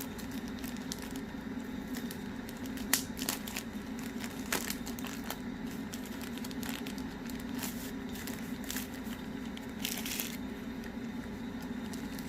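Plastic packaging crinkling and rustling as an accessory is unwrapped by hand, with scattered clicks, a sharp tap about three seconds in and a short rustle near the ten-second mark.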